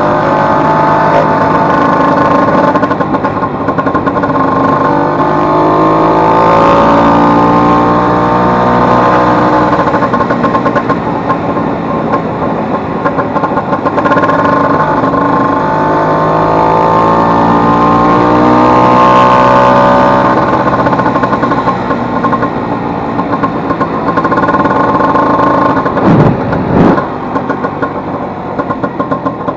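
Vespa 150's single-cylinder two-stroke engine running under way, revs climbing and falling several times as it pulls through the gears, the engine repaired after a broken cush-drive gear. Near the end come two sharp knocks, then the engine settles to a lower, evenly pulsing run.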